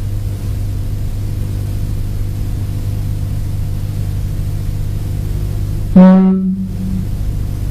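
A steady low droning hum with a few faint held tones, the sound bed under the lesson's title cards. About six seconds in, a man's voice comes in briefly.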